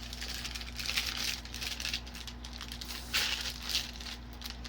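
Plastic and paper toy packaging crinkling and rustling as a small surprise package is torn open by hand, with light rattling of small pieces inside. The crinkling comes in two spells, near the start and again a little past the middle.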